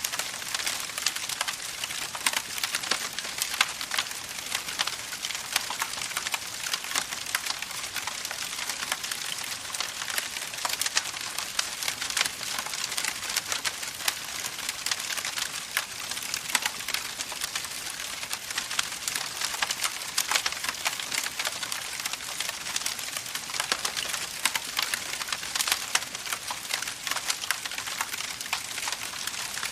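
Wood campfire burning, with dense, steady crackling and frequent sharper pops.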